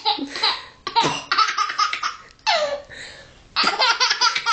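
A baby laughing in repeated bursts of quick pulses, with a short falling squeal about halfway through.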